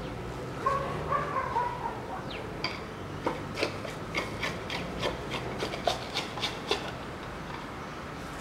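A screwdriver turning out the screw of an air compressor's plastic pressure-switch cover, making a run of light clicks and scrapes about two or three a second. The cover is then lifted off.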